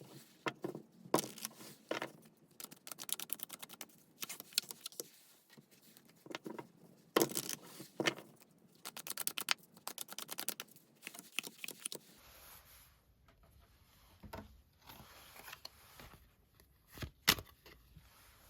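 Tarot cards being shuffled and handled: quick runs of crisp card clicks and flicks, with a few louder single taps near the end as cards are set down.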